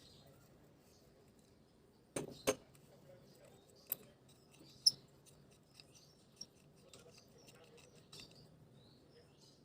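Parts of a Bialetti Brikka aluminium moka pot being handled during disassembly: scattered metal clicks and knocks, a double knock about two seconds in and the sharpest click near the middle, over a faint steady low hum.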